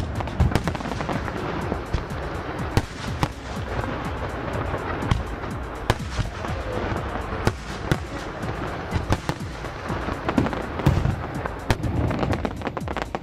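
Fireworks display: many irregular bangs and crackling from aerial shells bursting, several a second at times, over background music.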